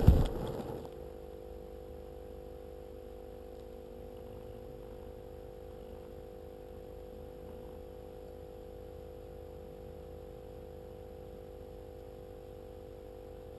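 A loud rattling noise dies away within the first second, leaving a faint steady hum with a few fixed tones that goes on unchanged.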